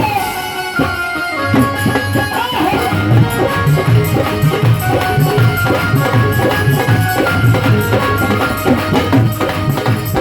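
Instrumental break in a Hindi devotional bhajan: a sustained melody line over a steady, driving hand-drum beat.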